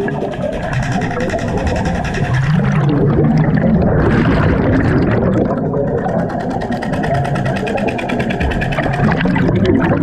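Underwater noise at a diver's helmet: a loud rush of breathing air and bubbles with a fast, even rattle throughout. The rush swells from about three to five seconds in.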